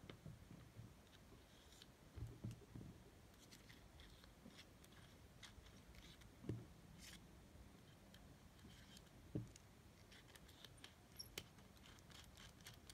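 Faint handling noises: small clicks and light ticks as a soldering iron's metal tip and knurled retaining nut are fitted and turned by hand, with a few soft thumps, the loudest near the middle.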